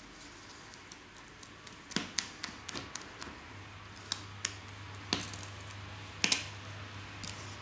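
Scattered light taps and clicks, with a few sharper knocks and a double knock near the end, as a Shake & Bake baking form and its lid part are handled on a countertop. A low steady hum comes in about halfway.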